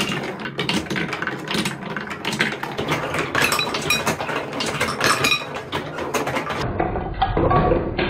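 Plastic balls rolling and clattering down a TrixTrack marble run of wooden and plastic wave-slope track, a dense run of quick clicks and rattles. In the second half, balls come off the end slopes and drop into a bowl of water.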